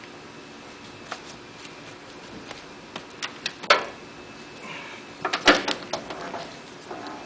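A stack of paper being set onto the feeder board of a Toko 4750 offset press by hand, with a series of knocks and clicks as the paper and feeder parts are handled, the loudest just past halfway and again about three-quarters through.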